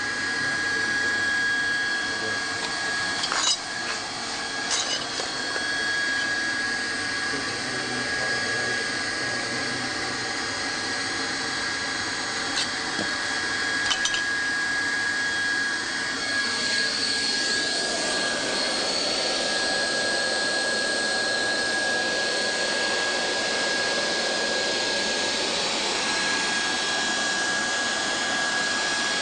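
Hot-air plastic welding gun blowing steadily, a hiss with a constant high whine, as a plastic welding rod is welded into a grooved vinyl floor miter. A few sharp clicks come in the first half, and the hiss changes character a little past the halfway point.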